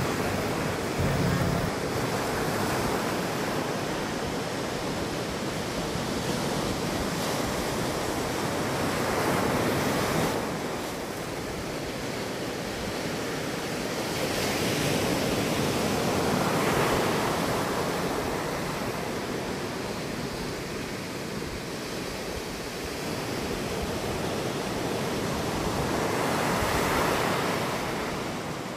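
Sea waves washing onto a beach, a steady rush of surf that swells louder every several seconds as sets come in.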